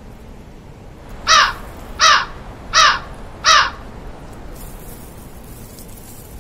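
A crow cawing four times in quick succession, about three calls every two seconds, each call short, harsh and falling slightly in pitch.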